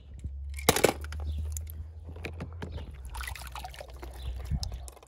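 Water splashing and dripping as small die-cast toy cars are dipped into and lifted out of tubs of water, with many short clicks and splashes, the loudest a little under a second in. A steady low rumble runs underneath.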